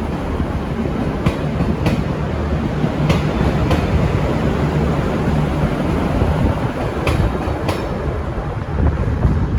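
V/Line VLocity diesel railcar set VL22 rolling past with its engines running in a steady low drone. Its wheels click over rail joints in pairs: three pairs of clicks, each pair about half a second apart.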